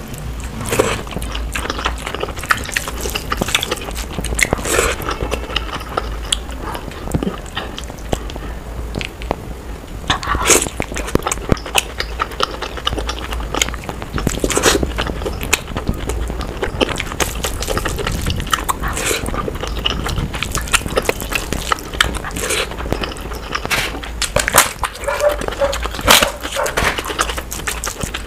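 Close-up eating sounds of rice and curry eaten by hand: wet squishing as rice is mixed into gravy, with chewing and lip-smacking in a dense run of irregular clicks and smacks. The whole track is played at double speed.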